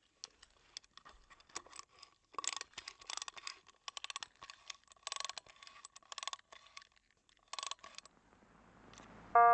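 Irregular crackling and clicking noise for about eight seconds, then a faint rising hiss. Loud electronic keyboard chords start at the very end.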